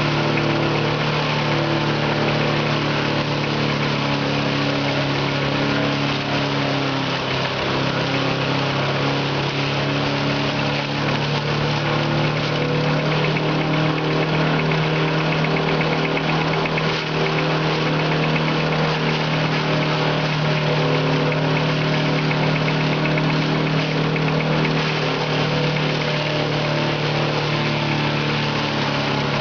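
Multipurpose crusher (broyeur polyvalent) driven by a small engine, running steadily while grass is fed into it: a constant engine hum under a steady chopping noise.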